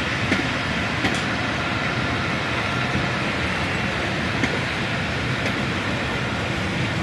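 Passenger train rolling past on the track: a steady rumble of its coaches, with a few sharp clicks from wheels over rail joints.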